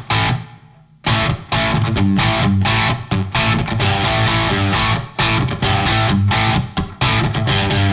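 Electric guitar played through a KOR Oracle overdrive/distortion pedal: one short distorted chord stab, then from about a second in a driving riff of changing chords, with short breaks between phrases.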